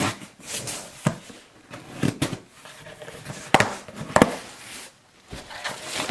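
Cardboard shipping box being slit along its tape and opened by hand: scraping and sharp knocks of the cardboard, the loudest two a little after three and a half and four seconds in.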